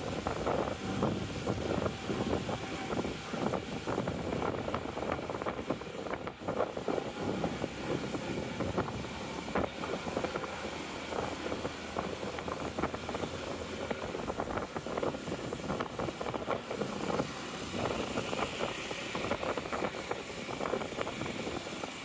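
Road noise heard from inside a moving car: engine and tyres running steadily, with many small knocks and rattles.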